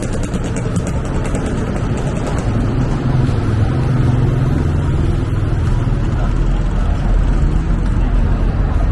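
Street traffic noise: a steady rumble of passing cars and motorbikes that grows louder about three seconds in.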